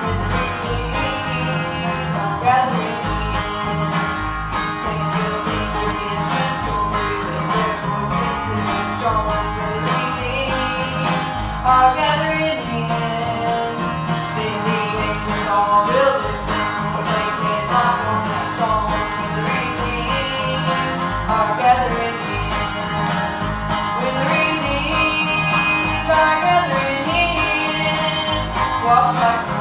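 Live bluegrass-style gospel music played by a small band, with acoustic guitar and banjo picking.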